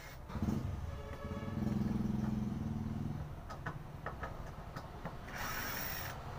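12-volt cordless drill (BLISS J1Z-FJ-10) running with its bit in a wooden pallet plank, drilling a hole: a brief spin-up, then a steady motor whine for about two seconds, followed by a few sharp clicks.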